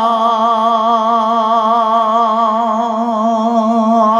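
A man's voice holding one long sung note with a slow, even vibrato, drawing out a word of a devotional Bengali verse chanted in a sermon.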